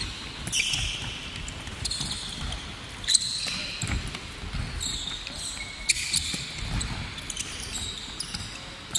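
Handball drill on a wooden sports-hall court: sneakers squeaking in short high chirps as players cut and shuffle, with handballs thudding as they are bounced, passed and caught. There is a sharp smack about three seconds in and another near six seconds.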